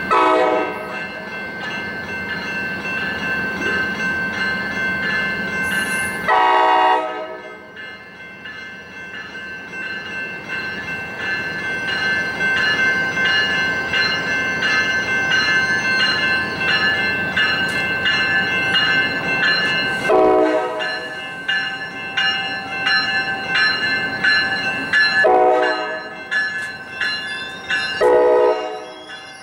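Horn of an approaching Capitol Corridor passenger train, sounded from its leading cab car: five short blasts, one at the start, one about six seconds in, and three in the last ten seconds, the last two close together. A railroad crossing bell rings steadily underneath.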